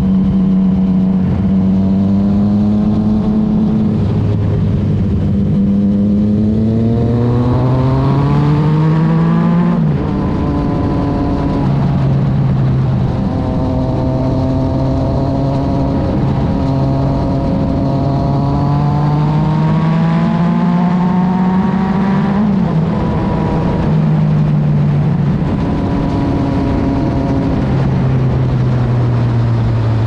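Yamaha XSR900 three-cylinder engine through an Arrow aftermarket exhaust, recorded right at the silencer while riding. The engine note climbs as the bike pulls through the revs and drops sharply at upshifts about ten and twenty-two seconds in, holding steady between, over wind and tyre noise.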